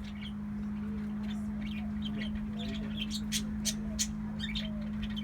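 Pet parakeets chattering in a cage: quick high chirps and squeaks with a softer, wavering lower warble, and a few sharp clicks past the middle. A steady low hum runs underneath.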